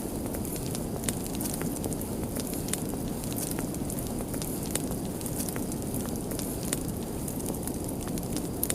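Fire crackling, with frequent sharp irregular pops over a steady low rush of burning.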